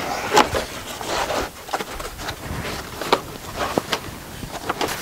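Plastic headliner panel of a RAM ProMaster van scraping and rustling against the roof trim as it is pushed and tucked into place, with scattered sharp clicks and knocks. The scraping is loudest in the first second and a half, then gives way to quieter rubbing and a few clicks.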